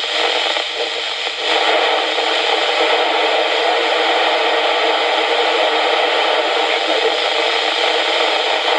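FM receiver hiss from a Yaesu transceiver's speaker tuned to 55 MHz. The walkie-talkie's signal is at the edge of its range: it crackles and breaks up for about the first second and a half, then is lost, leaving steady full noise.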